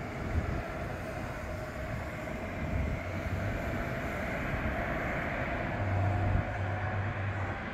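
Distant jet engines of an Airbus A320-211, its CFM56 turbofans running as the airliner sits on the runway before its takeoff roll: a steady rumble with a faint whine, growing a little louder about six seconds in.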